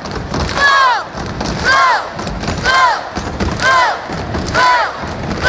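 Student crowd in gym bleachers cheering, with high shouts in a rhythmic chant about once a second over thumping underneath.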